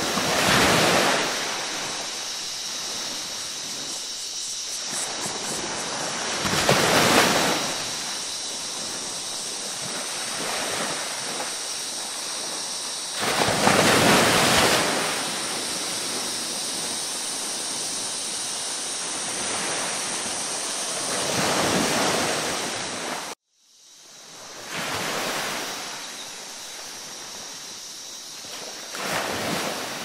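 Ocean waves washing in, swelling and falling back about every seven seconds over a steady wash of surf. Just after 23 seconds the sound cuts out completely for a moment, then comes back.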